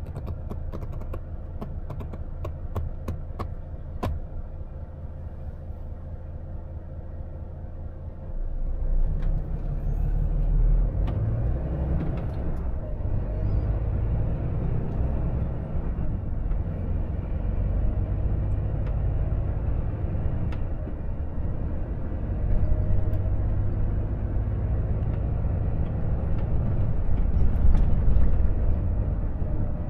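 Volvo FH 460 truck's six-cylinder diesel heard from inside the cab, idling with a run of light clicks in the first few seconds. About eight seconds in the truck pulls away, and the engine and road rumble grow louder as it gathers speed.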